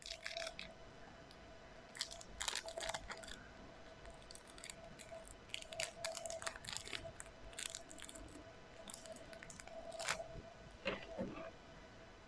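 Slime being squeezed and poked by hand, giving irregular clusters of crisp crackles and crunches with short pauses between them.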